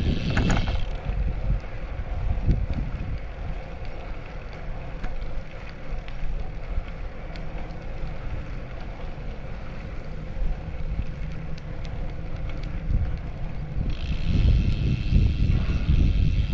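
Wind buffeting the microphone while riding a bicycle, a low, uneven rumble with tyre noise underneath; a higher hiss joins near the end.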